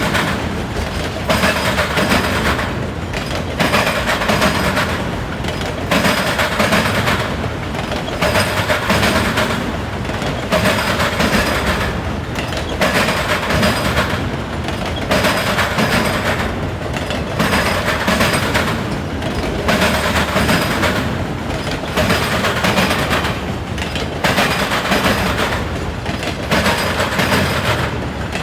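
Autorack freight train cars rolling over a railroad diamond crossing, their wheels hammering the crossing frogs. It makes a rapid clatter of impacts that comes back in regular groups about every two seconds as each car's trucks cross.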